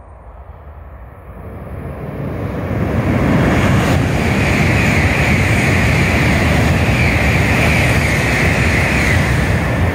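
700 series Shinkansen bullet train passing through the station at high speed without stopping. The noise builds over about three seconds as it approaches, then holds as a loud, steady rush with a high hiss over a deep rumble while the cars go by, starting to ease off near the end.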